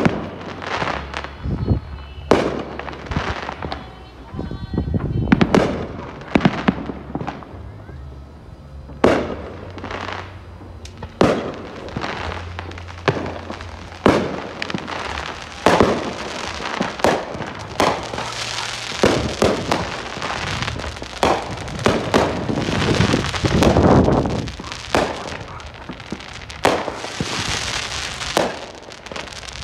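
Aerial fireworks going off one after another: many sharp bangs of shells bursting overhead, with dense crackling through the second half.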